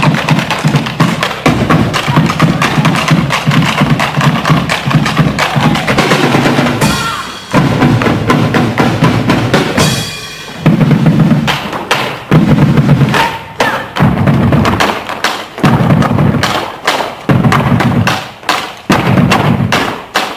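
Several bombo legüero drums beaten together with sticks in a fast malambo rhythm. The drumming breaks off briefly about seven seconds in and again about ten seconds in, then goes on in short phrases with brief gaps between them.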